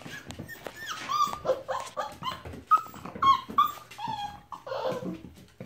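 Young puppies whining and yipping in a rapid string of short, high calls that drop in pitch, with a few light clicks in between.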